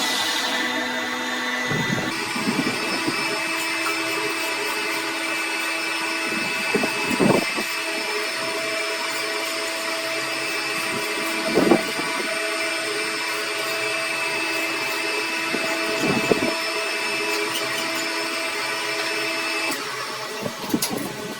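A workshop machine's electric motor running steadily, its hum holding several steady tones, with a brief louder scraping swell three times, roughly every four to five seconds.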